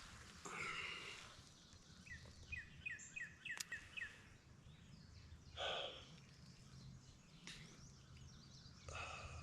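A small songbird singing a quick run of about seven short, downward-sliding chirps, about two seconds in. A few brief rustles and one sharp click are heard over faint outdoor ambience.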